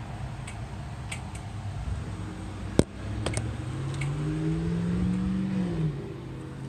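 A car engine accelerating on the street, its pitch rising for a few seconds and then dropping away, over a steady low traffic rumble. A sharp click just under three seconds in.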